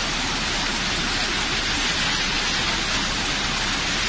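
Heavy rain and a torrent of floodwater rushing down a street, a steady, even rushing noise.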